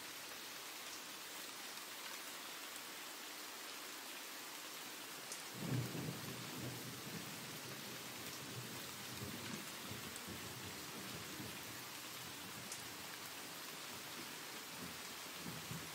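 Steady rain hiss, with a low rumble of thunder that starts about five and a half seconds in and rolls on, fading, for several seconds.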